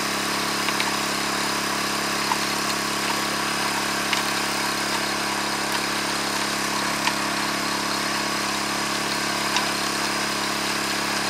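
Small engine of a backpack-mounted water pump running steadily, forcing water down a probe pipe pushed into the creek gravel to blow out a pocket for planting salmon eggs. A few faint ticks sound over the steady hum.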